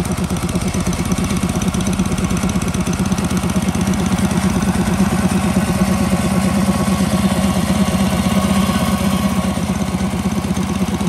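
Iwata portable air compressor's Robin petrol engine running steadily, driving the pump as it fills the 165-litre tank with air.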